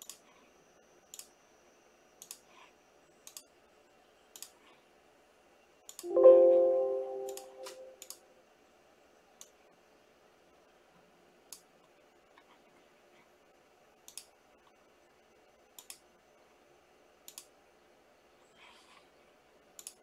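Sharp single clicks, about one a second at first and then at irregular gaps. About six seconds in, a loud ringing tone sounds and fades away over a second and a half.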